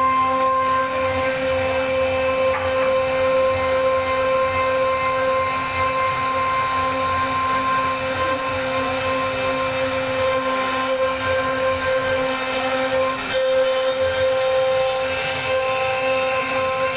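CNC router spindle running with a steady high whine as its bit carves into a wooden door panel, with a rough cutting noise beneath the whine.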